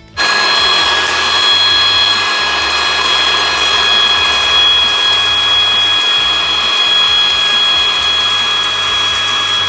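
A small high-speed motor running steadily, a loud whine with a rushing noise, switching on abruptly.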